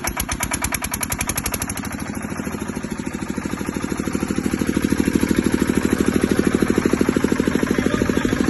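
Bajaj 10 kVA diesel generator set running just after starting, with a fast, even knocking firing beat. It is clattery at first, then settles and grows louder about five seconds in.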